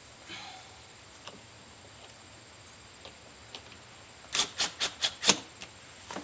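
Hands working the plastic grille and its screws: a few faint ticks, then a quick run of about six sharp clicks and knocks in little over a second, about four seconds in.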